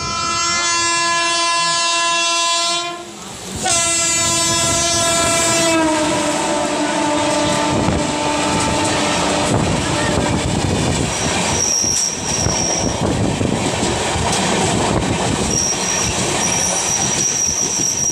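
A WAP-7 electric locomotive's horn sounds two long blasts, the second dropping in pitch as the locomotive passes close by. Then comes the rushing rumble and clickety-clack of the express's coaches passing on the next track, with a thin high wheel squeal twice.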